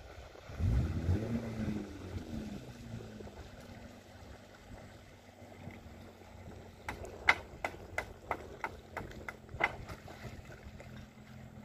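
Small boat's outboard motor revving briefly about a second in, rising and falling in pitch, then running steadily at low throttle as the boat comes in slowly. Between about seven and ten seconds in, a run of about eight sharp knocks.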